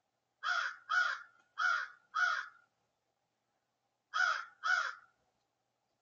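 A crow cawing six times off-camera: four harsh caws in quick succession, a pause of about a second and a half, then two more.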